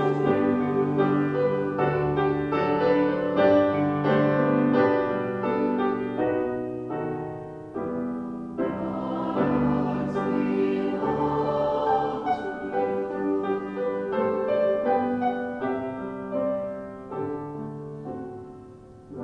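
Mixed concert choir singing in sustained chords with grand piano accompaniment. The sound dies away over the last few seconds.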